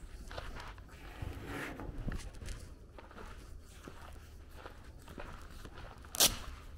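Footsteps on a gravel lane, with one sharp, loud click about six seconds in.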